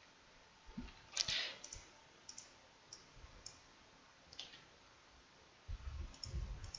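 Computer mouse clicking: several single sharp clicks, about half a second to a second apart, with a few low thumps near the end.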